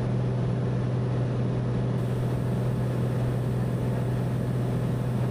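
Cessna 208B Caravan's single turboprop engine and propeller droning steadily in cruise-power descent, heard inside the cockpit as a constant low hum.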